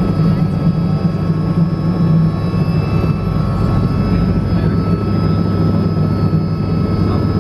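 Light helicopter's engine and rotor running steadily, heard from inside the cockpit: a loud, even low drone with thin steady whines above it.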